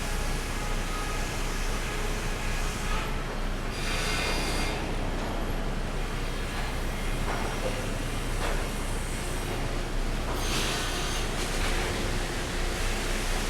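Sawmill machinery running steadily with a low hum, with louder hissing passages about four seconds in and again past ten seconds.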